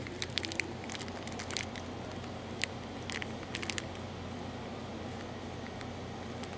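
Steady low hum of a shop's indoor background, with a scatter of small sharp clicks and crackles during the first four seconds that then die away.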